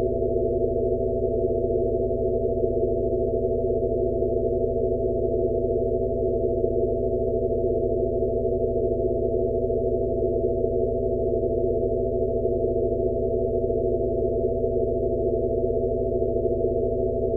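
Steady synthesized drone of layered pure tones, all low and mid in pitch, with a faint slow pulse about every second and a quarter: a sound-therapy frequency track of the kind sold as a Rife frequency.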